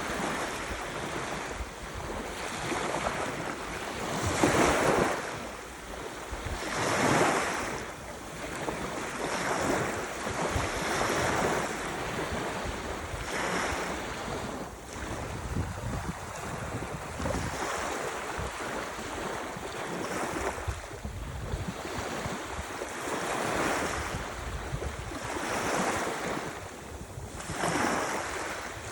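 Ocean waves breaking and washing up the shore: a steady rush of surf that swells and falls back every few seconds, with the loudest surges near the start.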